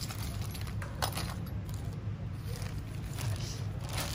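Handling noise: rustling of a plastic bag of drill bits and light clinks of metal tooling, in a few short bursts over a steady low hum.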